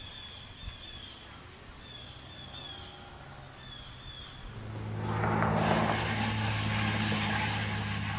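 A vehicle engine running with a steady low hum, getting much louder about halfway through and staying loud. A few high, falling chirps come before it.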